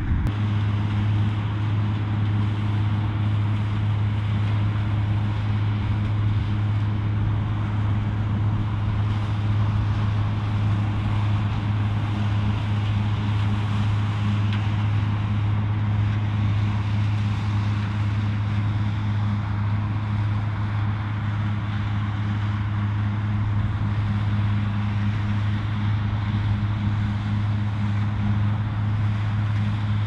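Claas Mega 218 combine harvester running under load while cutting rapeseed: a steady, unchanging drone of engine and threshing machinery with a deep constant hum.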